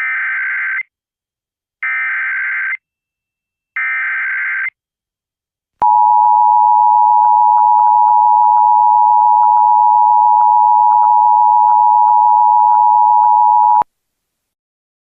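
Emergency Alert System activation: three short bursts of buzzy digital SAME header data about a second apart, then the steady two-tone EAS attention signal held for about eight seconds before cutting off sharply. It is the alarm that opens an emergency broadcast, here ahead of a flash flood warning.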